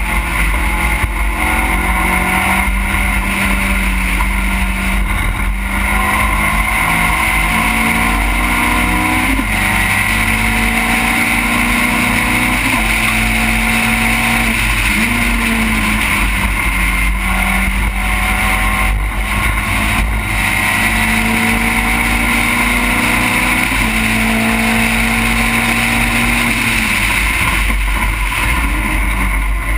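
Race car engine heard onboard at racing speed, its note climbing and stepping down repeatedly through gear changes, under a steady rush of wind over the microphone.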